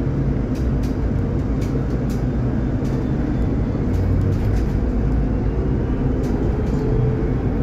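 Cabin noise of a Solaris Urbino 12 IV Hybrid city bus under way: a steady drivetrain hum and road rumble, with frequent small rattles and clicks from the interior. A faint whine rises in pitch in the second half.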